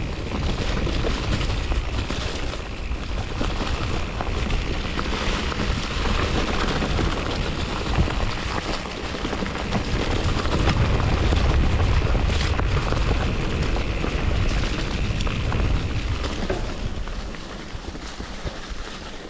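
Wind buffeting the microphone of a mountain bike descending a dirt trail, over the rumble of the tyres and scattered clicks and knocks from the bike. The rumble swells in the middle and eases near the end.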